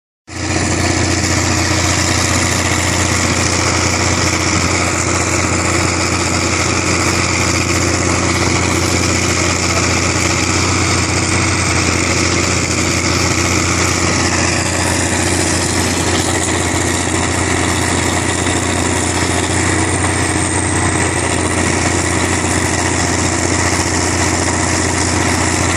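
Diesel engine of a Dresser TD-15C crawler dozer idling steadily.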